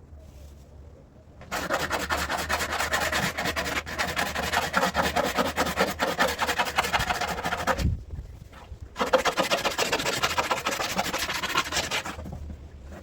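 Razor blade held flat and scraped quickly back and forth over a plastic seat back panel, in two long runs of rapid strokes with a pause of about a second about two-thirds of the way through.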